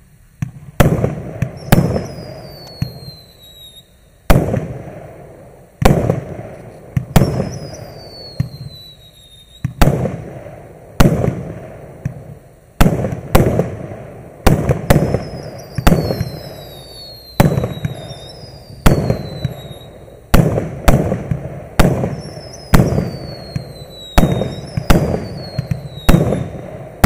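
A Maxsem MC134 consumer fireworks cake (0.8-inch caliber, 100 shots) firing in sequence. Sharp reports come about once a second, each followed by crackling bursts, and a high whistle falling in pitch trails several of the shots.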